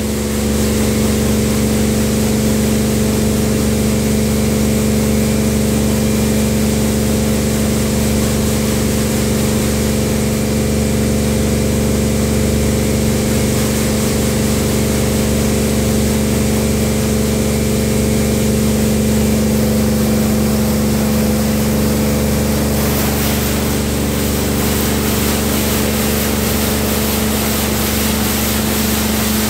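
Tammermatic T700 Lux touchless car wash running its wash cycle: the high-pressure pump's steady hum under the hiss of water jets spraying the car. The spray hiss grows louder and brighter about three-quarters of the way through.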